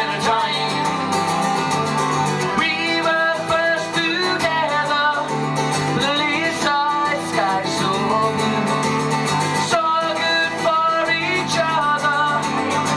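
Two acoustic guitars played together, with a man singing the melody into a microphone.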